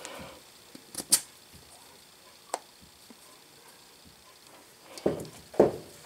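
A few sharp metal clicks and light knocks from the steel parts of a disassembled push-button magnetic indicator base being handled and put back together. The loudest click comes about a second in and a single one at about two and a half seconds; two duller knocks follow near the end.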